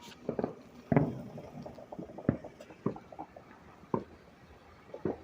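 Scattered distant bangs of New Year's Eve gunfire and fireworks: about six separate sharp reports at uneven intervals, the loudest about a second in.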